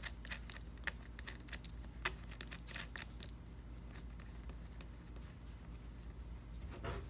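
Small metal clicks and ticks of a nut being threaded by hand onto the negative terminal post of a 12-volt lawn and garden battery, with a cable terminal on the post. The clicks come quickly for about the first three seconds, then only now and then.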